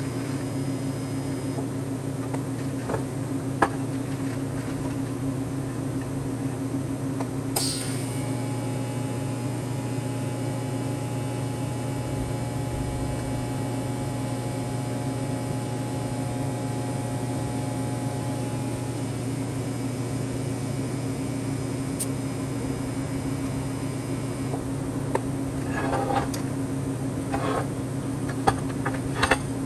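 Steady machine hum throughout, with a few short clicks and knocks, most of them close together near the end.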